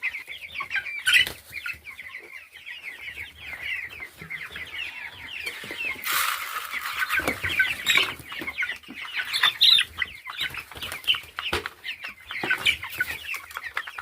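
Flock of nearly three-week-old chicks peeping continuously in a dense stream of short, falling peeps; the chicks have been kept without feed and water. A few sharp knocks and a brief rustling burst about six seconds in.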